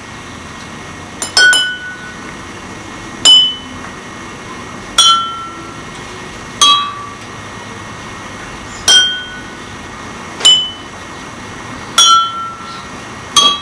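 A spoon taps four water glasses one at a time, eight strikes in all. Each glass is filled to a different water level, so each rings briefly at its own pitch. The notes step down from highest to lowest across the four glasses, and the run is played twice.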